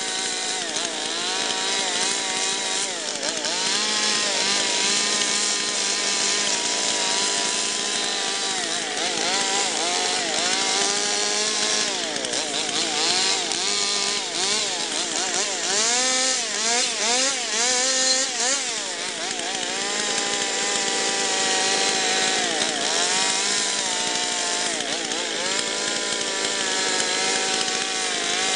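Two-stroke gasoline chainsaw carving into a log, its engine pitch rising and falling over and over as the throttle is worked and the chain bites into the wood.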